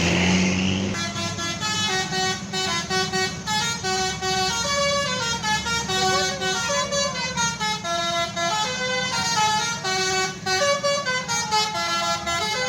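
Bus telolet horn, a bank of sequenced air horns, playing a quick melody of chords that step up and down in pitch. It starts about a second in, over the bus's engine running steadily.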